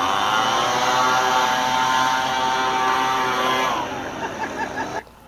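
Leaf blower running: its motor revs up, holds a steady high pitch for a few seconds, then winds down and sputters, stopping abruptly just before the end.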